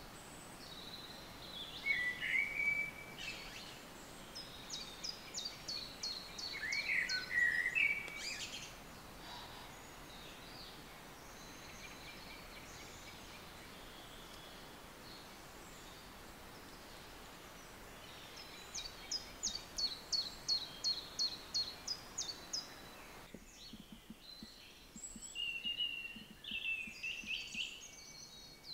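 Great tit nestlings begging in the nest box as a parent feeds them: two runs of rapid, high chirps several seconds long, mixed with lower squeaky calls, and another flurry of calls near the end.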